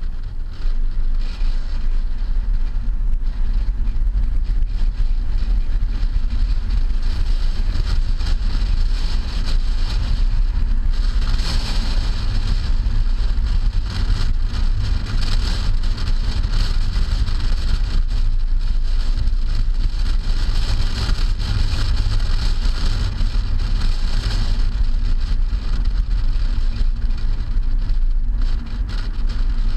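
Wind buffeting the microphone of a camera mounted on the trunk of a moving 2008 Hyundai Sonata: a steady low rumble over the car's road and tyre noise. A hiss grows louder for a stretch in the middle, then eases off.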